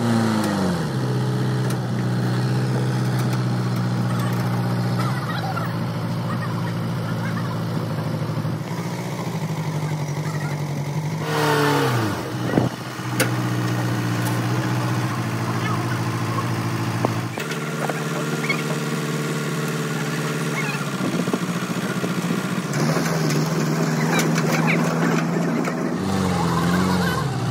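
A motor running at a steady speed, its pitch stepping up or down every few seconds, with one quick drop in pitch and recovery about twelve seconds in.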